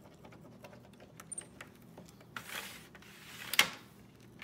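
Light taps and clicks of a plastic stylus on a magnetic drawing board, with a short scrape about two and a half seconds in and one sharp, louder click about a second later.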